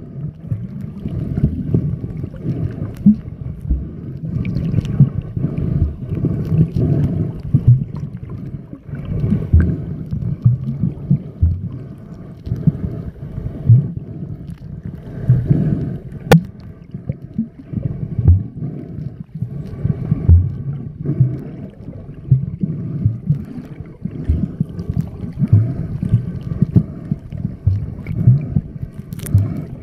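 Muffled underwater water noise from swimming in the sea: an irregular low sloshing rumble with frequent surges in loudness.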